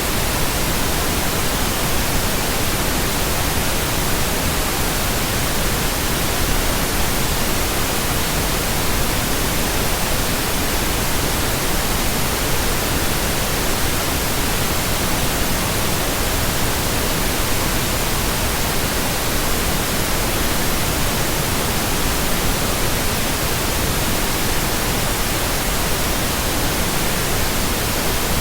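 Steady synthesised pink noise: an even, unbroken hiss across the whole range, with no tones or breaks.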